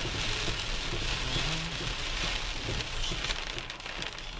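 Heavy rain beating steadily on a car's roof and windshield, heard from inside the cabin, over the low rumble of the car driving on a wet road.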